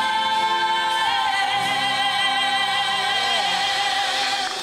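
A female soloist singing one long, held high note with vibrato, the closing note of the song, which cuts off near the end.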